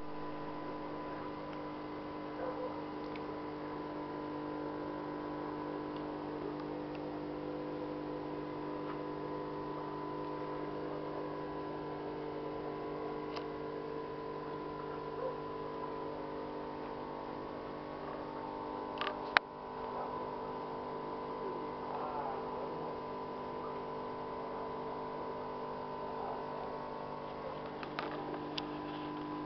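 Steady electrical hum from running aquarium equipment, several pitched tones held unchanging, with a few faint clicks and one sharp click about two-thirds of the way through.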